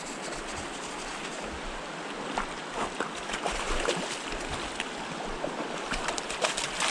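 Stream water running steadily over rocks, with scattered short clicks and splashes from about two seconds in.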